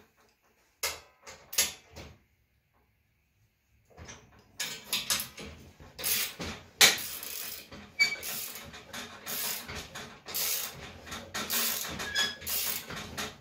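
Manual three-roll slip roller being worked with a 16-gauge stainless steel sheet in it: a few metal clicks, then from about four seconds in a dense, irregular run of clicking, rattling and brief squeaks as the ratchet turns the roll adjuster and the sheet is cranked through the rollers.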